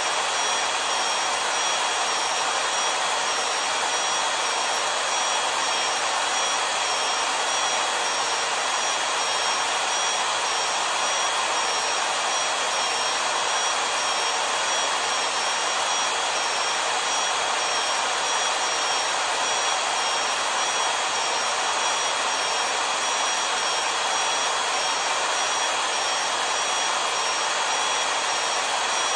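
Kwik-Way portable valve seat cutter running steadily, cutting the pocket for a new exhaust valve seat in a Model A Ford engine block. It makes an even, high motor whine over a rushing hiss that does not change.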